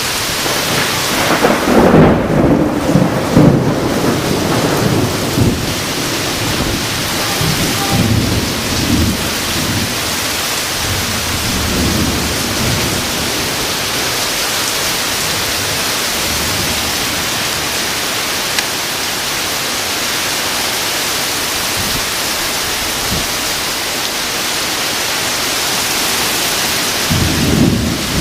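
Heavy thunderstorm rain pouring steadily, with a long rolling rumble of thunder through the first dozen seconds, loudest about two to four seconds in. Another short low rumble comes near the end.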